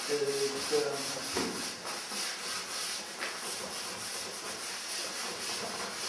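Pastel stick rubbing and scraping across paper in repeated short strokes, a dry, hissy scratching. A man's voice is heard briefly at the start.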